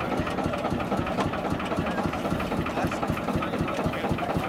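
Vintage tractor engine idling with an even, rapid beat.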